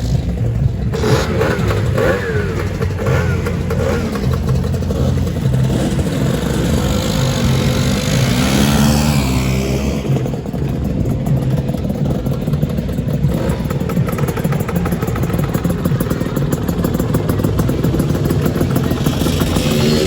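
Lambretta two-stroke scooters riding past one after another, their engines revving and pulling away. Their pitches rise and fall as they pass, one sweeping down strongly about halfway through.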